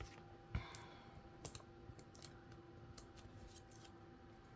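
Faint, scattered light clicks and taps of paper craft pieces and card stock being handled on a tabletop, with a slightly louder tap about half a second in.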